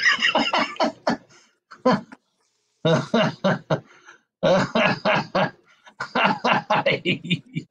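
A person laughing in several bursts of short, quick pulses, with brief pauses between them.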